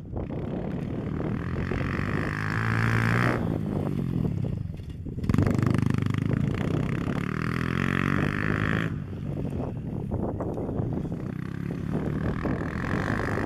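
Small pit bike engine running as the bike rides around, revving up and easing off again and again.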